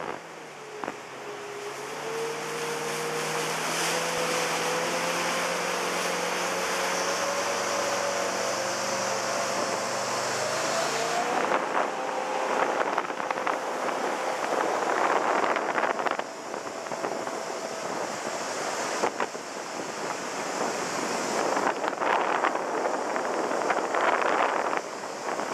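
Jet boat under way on a river: the engine and jet drone with one steady tone that climbs slowly and steps up about eleven seconds in, under the rush of water and wind buffeting the microphone, which surges in gusts through the second half.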